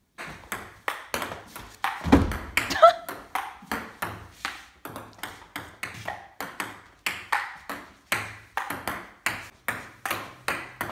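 Table tennis ball rallied against the upright folded half of an MD Sports table in playback mode: quick, regular clicks of ball on paddle, tabletop and backboard, about four a second. There is a louder low thump about two seconds in.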